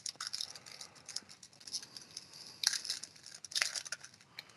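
Foil wrapper of a 2020 Panini Contenders football card pack being torn open and crinkled by hand, in a run of crackly bursts, loudest about two and a half seconds in and again about a second later.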